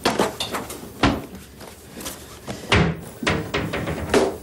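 Sharp wooden knocks and clacks from a wardrobe and shirt hangers as the shirts are pulled off the rail: about five hits, the loudest about a second in.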